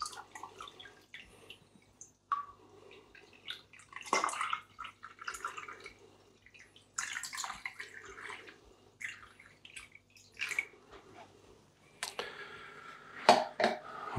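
Tap water poured from a plastic measuring jug into a small acrylic aquarium, splashing in several short pours with dripping in between.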